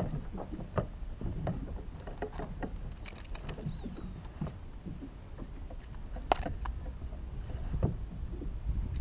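Water slapping against a fishing kayak's hull over a steady low rumble, with scattered small clicks and taps throughout; the sharpest tap comes about six seconds in.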